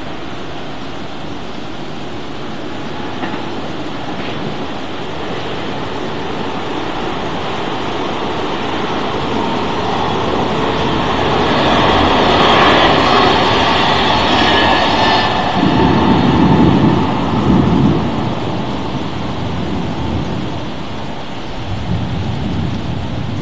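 Thunderstorm rain falling steadily, with a long rumble that slowly swells to its loudest about halfway through, followed by a few deep, low surges near the end.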